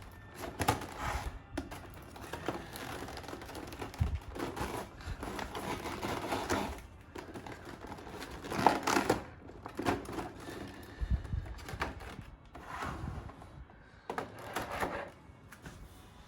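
Toy-figure packaging being handled and items put back into the box: irregular rustling, crinkling and small clacks in bursts, with a louder knock a little under halfway through.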